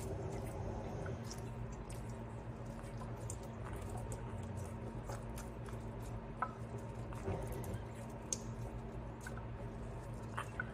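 A hand squeegeeing water off a wet newborn bulldog puppy's coat: soft wet squishing with scattered small clicks, over a steady low hum.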